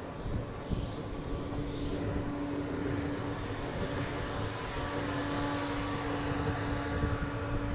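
Z 20500 double-deck electric train moving along the platform: a steady electric hum with a constant tone from the traction equipment over the rumble of the wheels.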